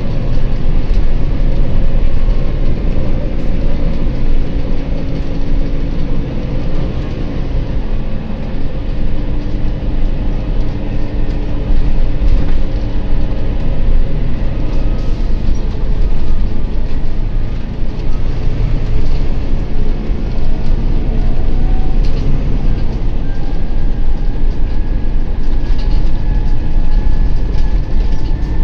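Interior of a Volvo B9TL double-decker bus under way: its diesel engine and road noise run steadily, with short knocks and rattles from a bumpy road. A faint whine climbs in pitch over the last several seconds.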